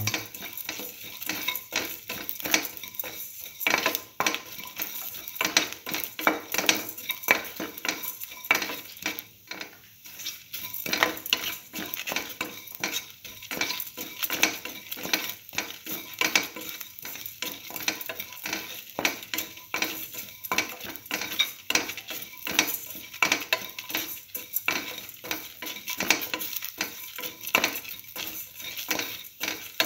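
Sautéing shallots, garlic and chillies in hot oil in a metal pan: a spatula scrapes and clatters against the pan again and again while the oil sizzles.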